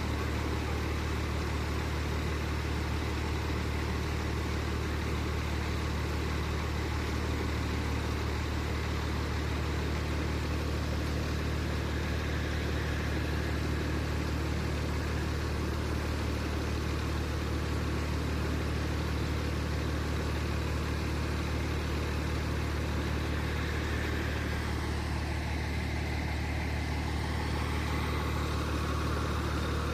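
Fire engine's diesel engine idling steadily, a low even hum with no change in speed.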